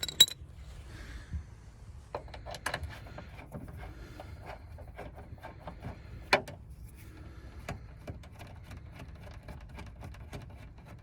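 Front door lock mechanism being worked loose inside a car door shell: scattered small clicks, rattles and rubs of metal and plastic, with one sharper click about six seconds in, over a low steady hum.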